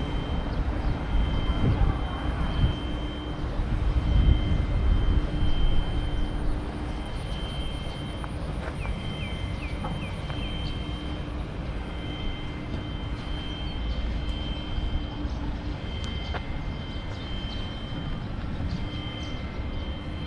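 Steady outdoor low rumble, heavier in the first six seconds, under a faint steady whine. A short run of four quick high chirps comes about nine seconds in.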